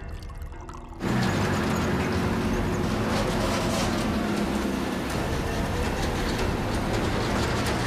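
Quiet music, then about a second in an abrupt cut to an old military truck's engine running steadily as the truck rolls slowly along, with soldiers' boots marching alongside.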